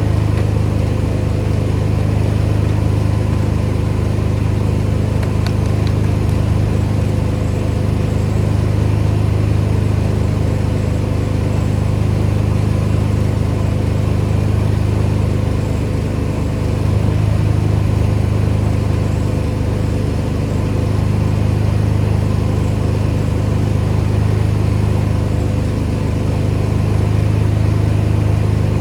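Pressure washer's engine running steadily at a constant speed.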